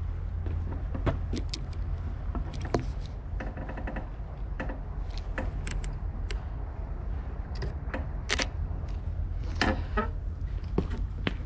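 Steady low outdoor rumble with irregular sharp clicks and taps from footsteps and camera handling. A louder cluster of clicks just before the end is like a camera shutter firing.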